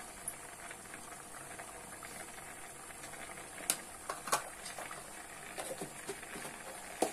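Chicken curry base of chicken pieces, onion, tomato and green chilli cooking in oil in a metal pot, with a steady low sizzling bubble. A few sharp clicks come through, two around four seconds in and one at the end.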